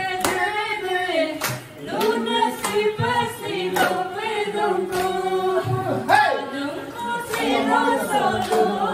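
A mixed group of voices singing a folk song together, unaccompanied, with sharp hand claps keeping the beat about once or twice a second.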